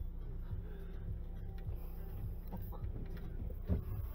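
Low rumble and soft handling knocks picked up by a camera mounted on the rifle scope, with a slightly louder knock near the end as the rifle is swung.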